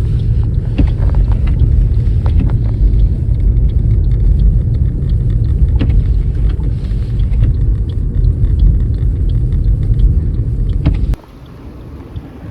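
Car on the move: a loud, steady low rumble of road and engine noise with a few faint clicks, cutting off suddenly about 11 seconds in.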